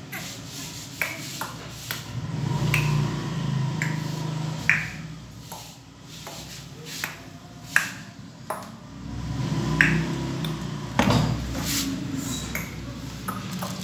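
Used engine oil dripping from an automatic scooter's drain hole into a plastic bag. Single drops land with sharp ticks at irregular intervals of about a second as the last of the oil drains out.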